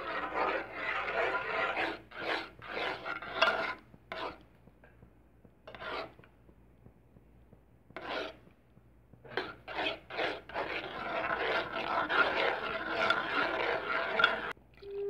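A spatula scraping and stirring across the bottom of a wok of thickening white sauce. The rasping is continuous at first, breaks into a few separate strokes with pauses from about four seconds in, then runs steadily again from about ten seconds until shortly before the end.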